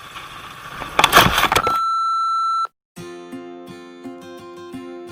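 A motorcycle engine runs for a second, then a loud burst of clattering noise. A steady electronic beep follows, held for about a second and cut off abruptly. After a brief silence, plucked guitar music with a regular beat starts.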